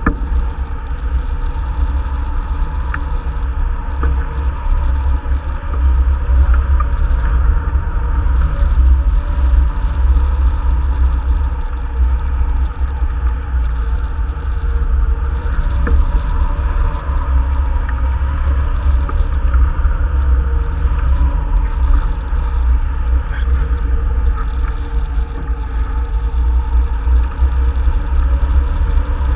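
Wind noise from the airflow over the microphone of a camera mounted on a tandem hang glider in flight: a loud, steady, low buffeting rumble.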